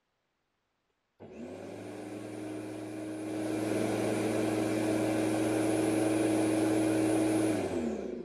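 Black & Decker BEMW351 electric lawn mower's 1000 W motor and blade starting suddenly about a second in and running at a steady hum. Near the end it is switched off and spins down, its pitch falling.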